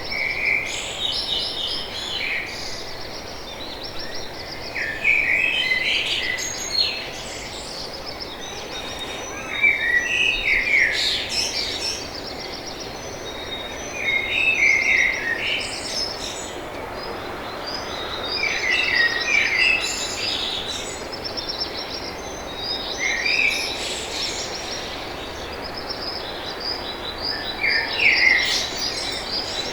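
Songbirds singing: a short, quick trilled song phrase repeats about every four to five seconds, with other high chirps between the phrases, over a steady background hiss.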